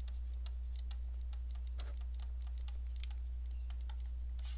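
Irregular light clicks and taps of a stylus on a tablet screen while handwriting, over a steady low electrical hum.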